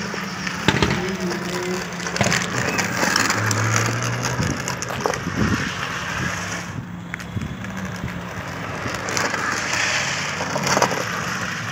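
Drift trike's hard rear wheels scraping and grinding across asphalt as it slides and turns, with scattered knocks, over a steady low hum.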